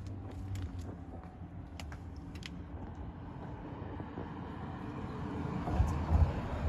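Handling noise from a hand-held camera being moved close to the ground: scattered light clicks and rustles over a steady low hum, with a few low thumps about six seconds in.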